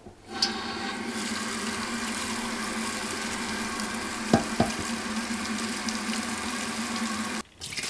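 Tap water running in a steady stream onto a perforated stainless-steel steamer plate over a bowl of sprouting mung beans, rinsing them. There are two light knocks a little past halfway, and the flow stops abruptly near the end.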